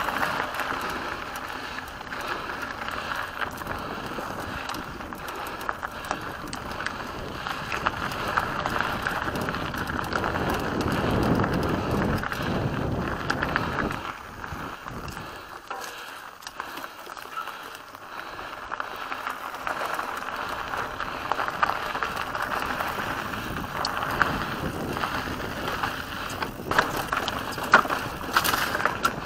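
Mountain bike riding along a dry dirt singletrack: tyres rolling over gravel and dirt, with the frame rattling and clicking over the bumps. It is quieter for a few seconds in the middle, and there are a few sharper knocks near the end.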